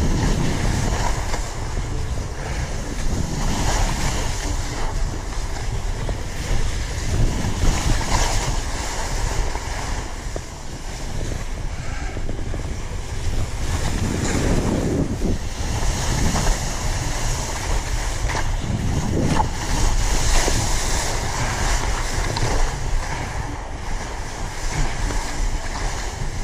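Wind buffeting the microphone while skiing down granular spring corn snow, with the hiss of the skis on the snow swelling every few seconds.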